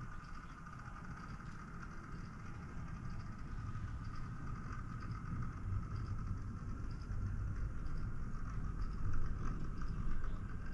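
Model train running along the track: a steady low rumble with a steady higher whine above it, getting gradually louder.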